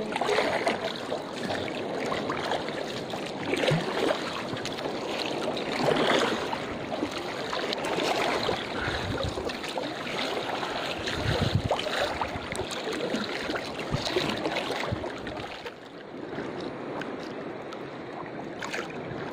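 Water swishing and splashing around a small wooden canoe as it is paddled by hand with a wooden paddle, the sound swelling with the strokes. It drops to a quieter lapping for the last few seconds as the paddling stops.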